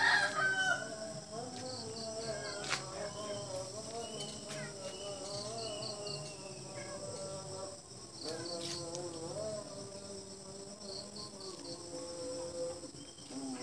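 Insects chirping: a steady high buzz with short groups of about five quick pulses repeating every couple of seconds.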